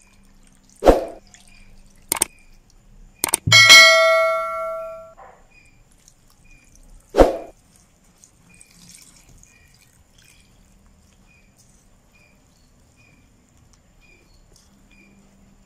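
Stainless steel bowls clanking: a few sharp knocks, then one bowl rings with a clear metallic tone that fades over about a second and a half, and one more clank a few seconds later.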